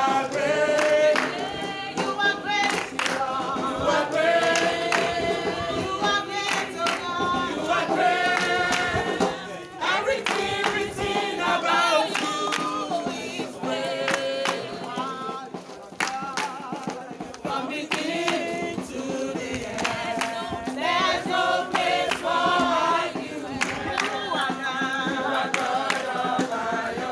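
A crowd of people singing a song together in chorus.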